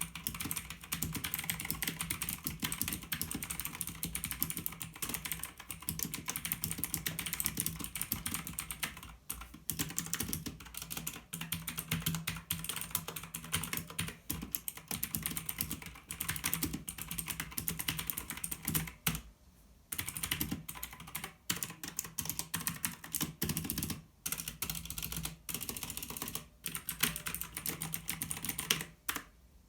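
Fast continuous typing on a mechanical keyboard with Outemu blue switches: a dense run of sharp clicks from the clicky, tactile switches, broken by a few short pauses.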